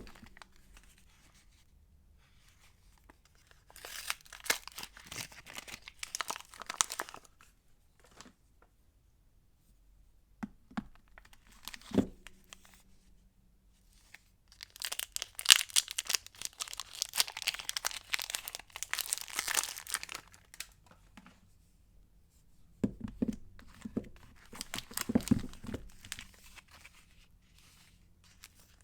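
Soap wrapping being torn open and crinkled by hand in three bouts, with a single sharp knock in the middle.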